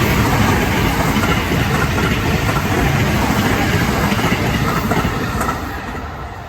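Train passing over a level crossing, a loud, steady rumble of wheels on rail that fades away about five and a half seconds in.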